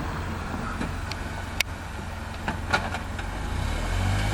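Steady low vehicle rumble, with a few sharp clicks about a second and a half and nearly three seconds in.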